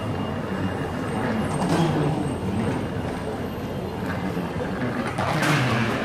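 Steady mechanical rumble of an airport moving walkway, with people's voices in a busy terminal around it and a brief louder noise near the end.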